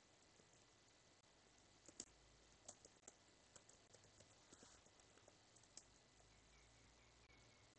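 Faint computer keyboard keystrokes: about fifteen irregular taps of typing, starting about two seconds in and stopping near six seconds, over near-silent room tone.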